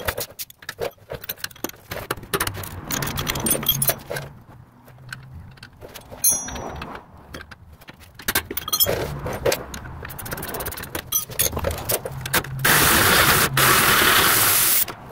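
Wrench and socket working loose the brake caliper bolts on a car's rear wheel hub: a run of quick metallic clicks and clinks. Near the end comes a loud, even rushing noise lasting about two seconds.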